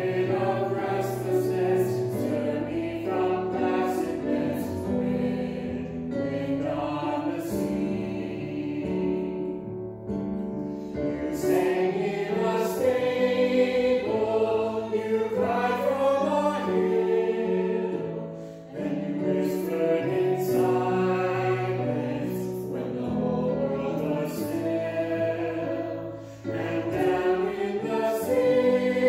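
A small group of men and women singing a hymn together, holding sustained notes phrase by phrase, with short breaks between the phrases.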